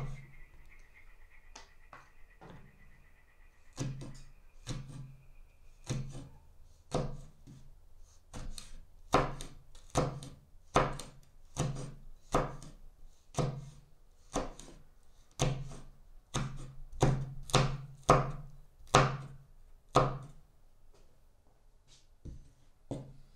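Chef's knife chopping chili peppers on a wooden cutting board: a string of sharp knocks of the blade on the board. The knocks are sparse at first, run at about two a second later on, and stop about three seconds before the end.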